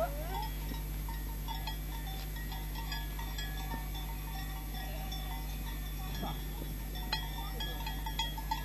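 Scattered light clinks and tinkles, like small animal bells, over a steady low hum, with one brief falling sound about six seconds in.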